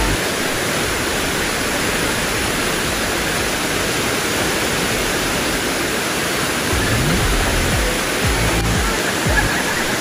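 Waterfall cascading over rock ledges: a steady, loud rush of falling water.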